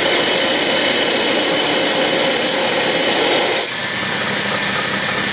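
Homemade 2x72 belt grinder running, with a steel knife blade being ground against the abrasive belt in a steady, hissing rasp. The blade comes off the belt a little under four seconds in while the grinder keeps running.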